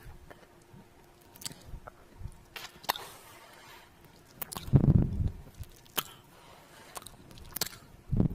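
Close-miked kissing and lip-smacking sounds: a string of wet smacks and pops at irregular intervals, the loudest and fullest about five seconds in, another strong one near the end.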